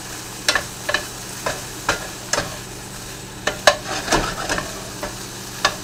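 Chicken pieces being stirred in a frying skillet: a utensil clicks and scrapes against the pan about twice a second, with a cluster of clicks about four seconds in, over a steady sizzle.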